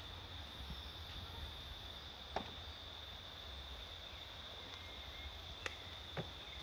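Insects droning in the forest: one steady high note held throughout, over a low rumble, with a few faint clicks about two and a half, five and a half and six seconds in.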